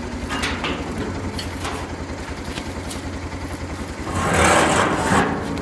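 A small engine running steadily with a low, even pulse, and a burst of rough noise lasting about a second near the end.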